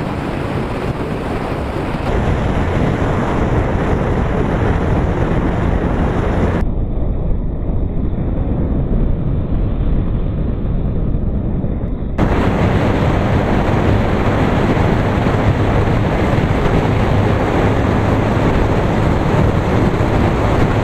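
Wind buffeting the microphone of a moving motorcycle, a steady rush with the engine's low hum underneath. The sound turns duller for several seconds midway, then brightens again.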